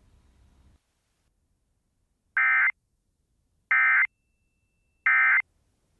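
Emergency Alert System end-of-message signal: three short bursts of buzzy, warbling data tones, a little over a second apart, marking the end of the alert.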